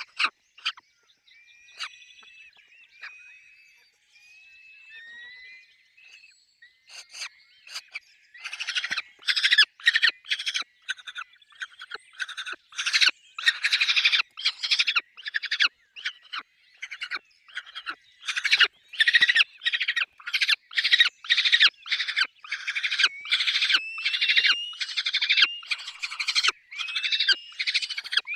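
Peregrine falcons calling at the nest. Thin whistled notes come first; then, about a third of the way in, a long run of harsh, rasping calls starts, about two a second, and keeps going.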